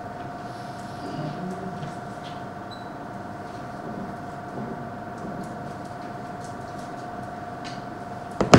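Quiet room with a steady high electronic whine and faint rustles and ticks, broken near the end by one sharp knock.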